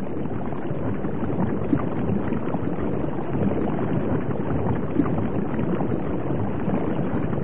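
Underwater ambience: a steady low rushing wash with dense, faint crackling and scattered small clicks throughout.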